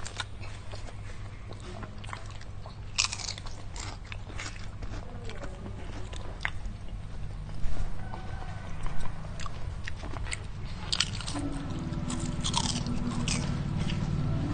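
Close-miked crunching and chewing of thin fried potato chips: a scatter of sharp, crisp crunches, loudest about eight and nine seconds in, over a steady low hum.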